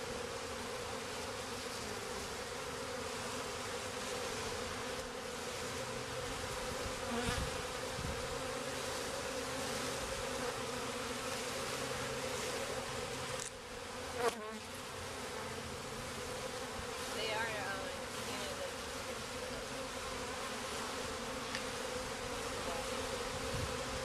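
Honeybee swarm buzzing steadily, a dense, even hum of many bees at once. One sharp knock a little past halfway through.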